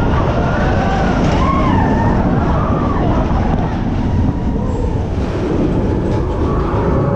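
Expedition Everest roller coaster train running along its track with a loud, steady rumble, with high squeals rising and falling over it in the first few seconds.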